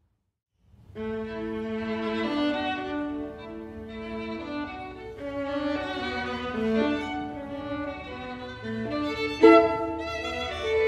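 String quartet playing: after about a second of silence, the bowed strings enter together in sustained chords that change every second or so. A sharp, loud accented chord comes near the end.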